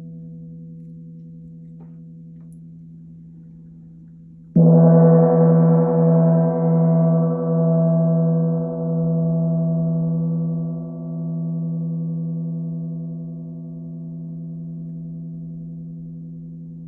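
A 16-inch Chinese wind gong, still ringing from an earlier stroke, is struck again about four and a half seconds in. The stroke gives a sudden loud ring with many overtones, which settles into a low, wavering hum and slowly fades.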